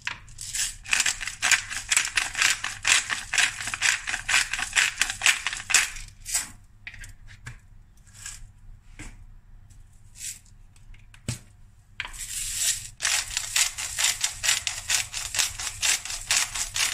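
Hand-turned pepper and salt grinders being cranked. A fast run of dry clicking lasts about six seconds, then comes a few scattered clicks, and a second grinding spell starts about twelve seconds in.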